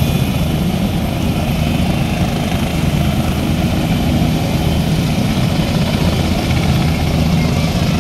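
AH-64 Apache attack helicopters running on the ground, their twin turboshaft engines and rotors making a loud, steady drone.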